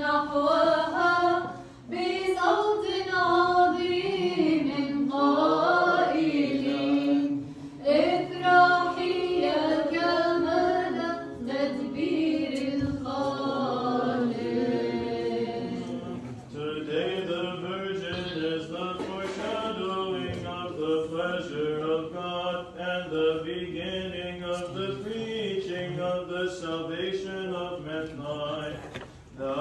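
Unaccompanied Orthodox liturgical chant, voices singing a hymn continuously; about halfway through the sound turns duller.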